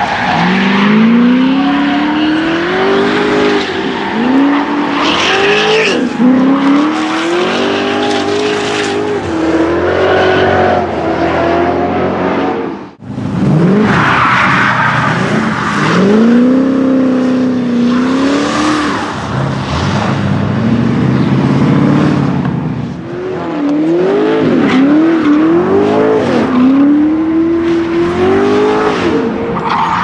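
Chevrolet LS1 V8 in a BMW E36 drift car, modified to about 600 hp, revving hard with the pitch swinging up and down again and again as the car drifts, over the screech of spinning, sliding tyres. The sound drops out for an instant about halfway through.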